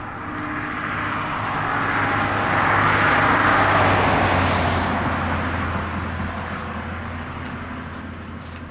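A passing motor vehicle, growing louder to a peak about three and a half seconds in and then slowly fading away.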